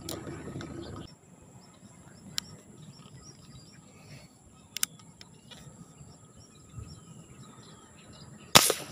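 A single sharp gunshot from a scoped rifle rigged with a line reel, fired at fish in the water, near the end; it is by far the loudest sound. Before it there are faint bird chirps and two small clicks of the gun being handled.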